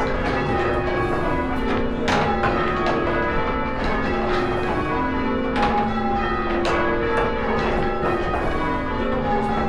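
Six church bells rung in turn, one strike following another in a steady, continuous sequence, each bell's ring overlapping the next.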